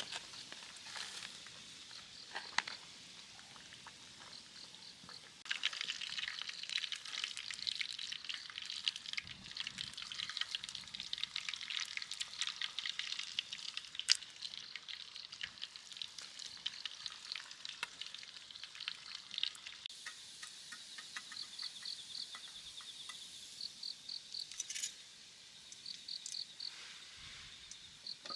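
Food sizzling and spitting as it cooks over a camp fire, starting about five seconds in and easing off after about twenty seconds. Insects chirp in short, evenly pulsed trills near the start and through the last part.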